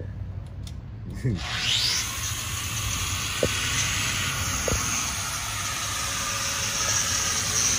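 A power grinder spins up about a second and a half in, its pitch rising quickly, then grinds steadily with a harsh hiss.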